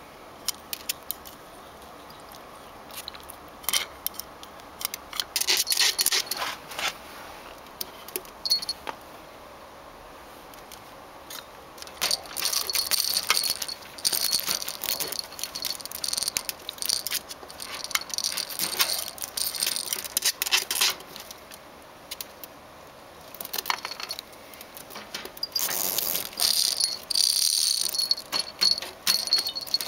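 Wire cage door and a hanging plastic toy rattling and clinking in irregular bursts as a ferret tugs and pulls at the toy, with short quiet gaps between the bouts.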